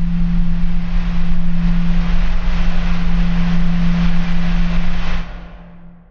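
Synthesized cinematic riser: a dense hiss swelling brighter over a steady low hum and deep rumble, then dropping away sharply about five seconds in and fading out.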